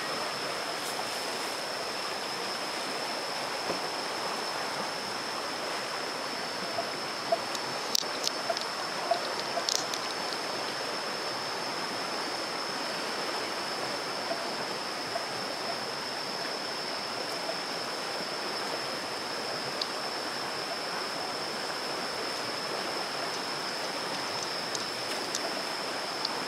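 A shallow, fast-flowing river rushing steadily over stones, with a steady high-pitched whine above it and a few sharp clicks between about eight and ten seconds in.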